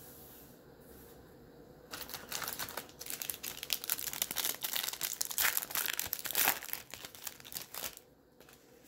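Foil wrapper of a baseball card pack crinkling as it is torn open by hand: a dense, rapid crackle that starts about two seconds in and stops shortly before the end.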